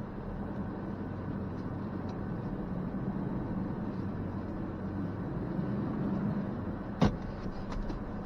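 Ford Ranger Tremor pickup running steadily at low speed on a loose rocky dirt trail, a low engine hum with a rumble of tyres over the ground. A single sharp knock sounds about seven seconds in.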